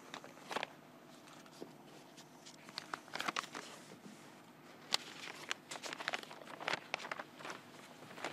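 Irregular soft rustling and crinkling with scattered small clicks, the sharpest about five seconds in: handling noise close to the microphone.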